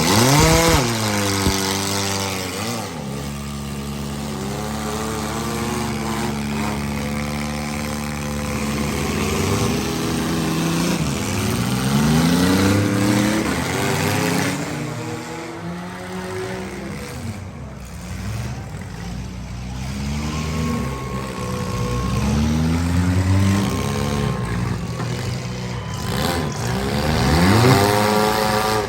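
Engines of compact and midsize demolition derby cars revving hard again and again, their pitch rising and falling as the cars accelerate and back off.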